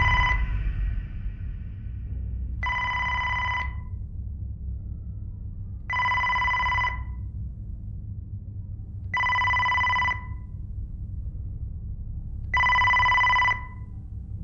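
Telephone ringing four times, each ring a steady electronic tone about a second long and some three seconds apart, with nobody picking up. A music cue dies away at the start, and a low hum runs underneath.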